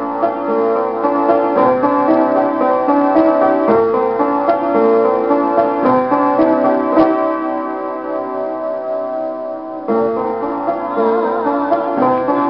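Upright piano played as a song accompaniment, steady chords and melody notes. About a second before the end a woman's singing voice comes in over the piano.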